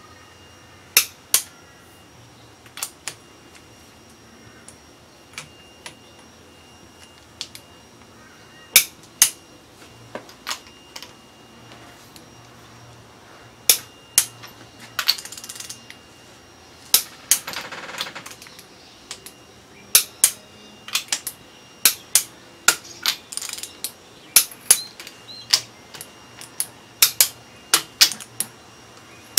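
Click-type torque wrench tightening cylinder head bolts: sharp single and paired clicks as bolts reach torque. Two short runs of rapid ratchet clicking come about halfway through, as the wrench is swung back.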